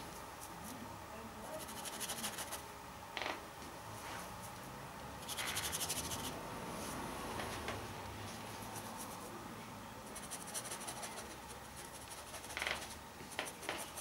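Faint, scratchy strokes of a brush laying oil paint on a canvas, coming in several short spells of brushing with quieter stretches between.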